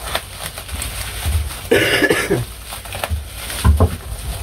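Bubble wrap and plastic packing crinkling as it is cut with scissors and pulled off a prop, with one short burst of a person's voice about two seconds in.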